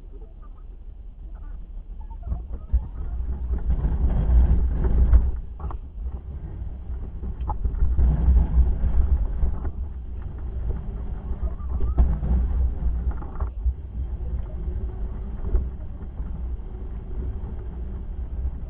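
Snowplow pickup truck's engine rumbling under load as its Fisher XV2 V-plow pushes wet slush, swelling louder three times, about four, eight and twelve seconds in. A rough scraping, rushing noise comes with each push, with a few sharp clunks.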